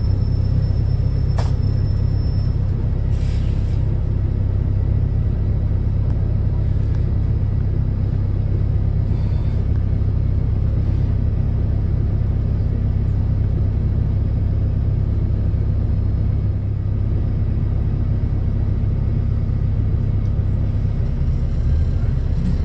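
New Routemaster hybrid bus's Cummins ISBe 4.5-litre inline-four diesel running at a steady speed: a constant low rumble. A single sharp click about a second and a half in.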